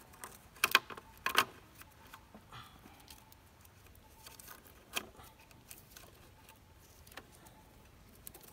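Sharp metallic clicks and taps from hands and tools working on a broken-down motorbike during a makeshift roadside repair. Three loud clicks come close together in the first second and a half, then a few scattered fainter taps.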